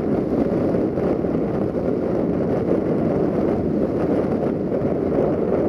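Steady rush of wind buffeting the microphone, with a diesel multiple unit running on the line below.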